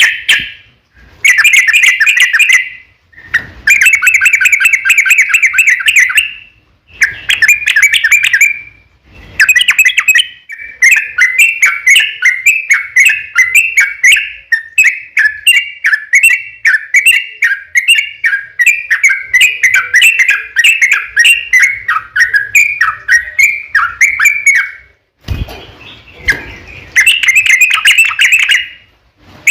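Yellow-vented bulbul singing loud, chattering song. Several short bursts come first, then from about ten seconds in one long run of rapid notes lasts about fifteen seconds.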